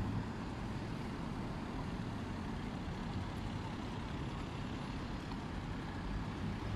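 Steady low rumble of road traffic, an even wash of noise with no single vehicle standing out.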